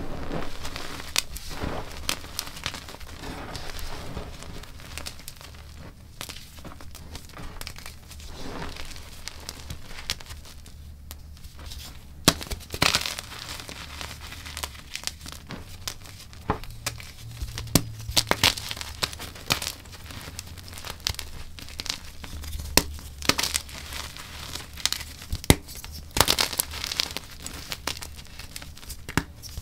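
Gym chalk crunching and crumbling in the hands: fingers dig through a pile of powder and chunks and break dyed chalk blocks apart, giving many sharp crackling snaps, thicker in a few spells.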